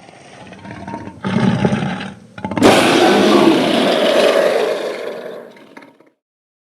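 Dragon roar sound effect: a low growl swells up, breaks into a short loud roar a little over a second in, then a longer, louder roar follows and fades away near the end.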